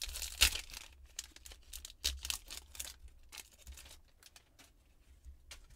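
Trading card pack wrapper being torn open and crinkled by hand, in several rustling bursts with small clicks. The loudest bursts come about half a second in and about two seconds in, then it fades to quieter handling.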